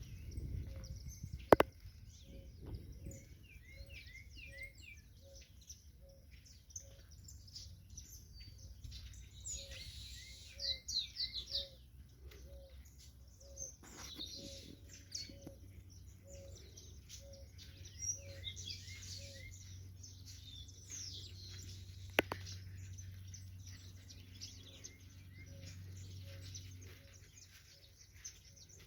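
Several wild birds singing and chirping at once, with quick trills and short whistled notes, over a low note repeated steadily about every three-quarters of a second. A sharp click sounds near the start and another about two-thirds of the way through.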